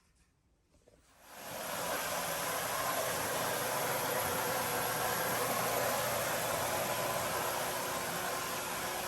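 Water rushing into a GE washer through its newly replaced water inlet valve, starting about a second in as the valve opens and then running as a steady hiss while the machine fills.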